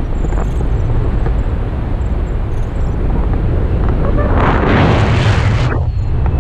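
Wind rushing over an action camera's microphone in paraglider flight: a steady low rumble, with a louder rush of wind about four seconds in that lasts over a second.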